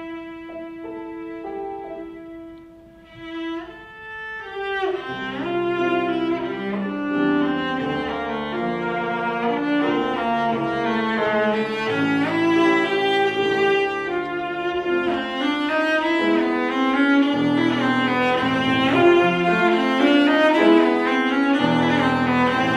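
Cello and grand piano playing classical music together. A soft held cello note fades in the first few seconds, then after a short lull both instruments come in fuller and louder, with the cello moving through quickly changing notes over the piano.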